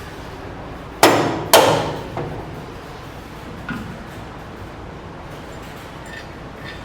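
Two loud, sharp metal impacts about half a second apart, each ringing briefly, followed by a lighter knock, as suspension parts are worked on.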